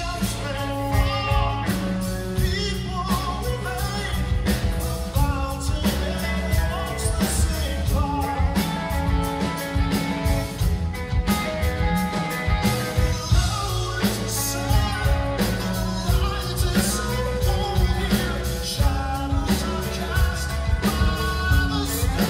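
Live progressive rock band playing: a male lead vocal sung into a microphone over a full band with a strong bass and steady drums.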